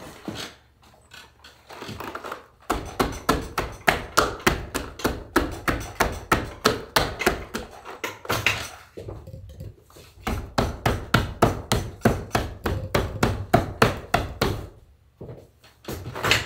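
Wooden rub stick worked hard and fast over the leather of a saddle seat, about three strokes a second, in two long runs with a short pause between them. It is compressing and smoothing out a wrinkle in the seat leather.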